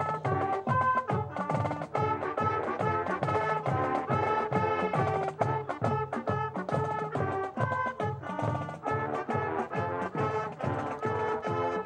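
High school marching band playing: sustained brass chords over a steady drum beat.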